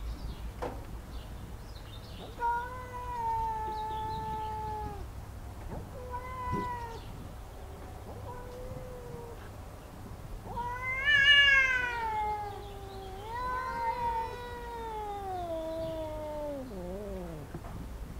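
Two domestic cats yowling at each other in a territorial face-off: about five long, drawn-out, wavering yowls, the loudest about halfway through rising then falling, and the last one sliding steadily down in pitch before breaking off near the end.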